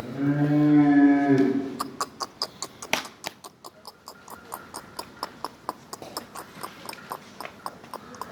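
A dairy animal lows once, a loud call lasting about a second and a half, then a quick, even clacking starts, about five clacks a second.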